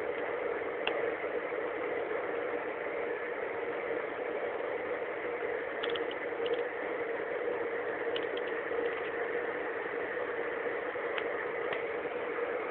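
Steady road and engine noise of a car driving at highway speed, heard from inside the cabin, with a few faint ticks or rattles scattered through it.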